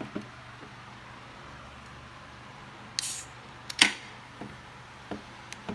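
A beer being opened: a short fizzing hiss about three seconds in, then two sharp clicks, followed by a few faint knocks as it is handled.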